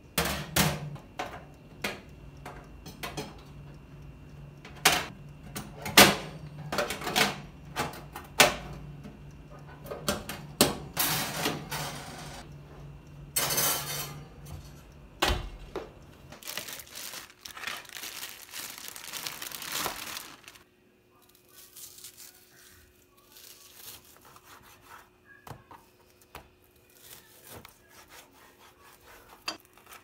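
Kitchen handling sounds: dishes, utensils and wooden items clinking and knocking, over a steady low hum that stops about halfway through. A few seconds of hissing follow, then only faint, scattered taps.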